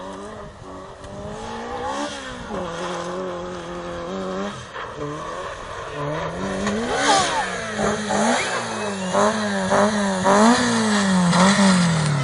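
Rally car engine on a gravel stage, revs rising and falling repeatedly as the driver works the throttle and gears, growing louder as the car approaches, with several quick up-and-down revs in the second half.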